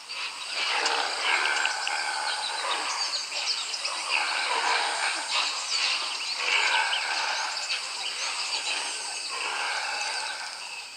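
Outdoor natural ambience with many short bird chirps over steady insect noise, given as the sound for the antelope.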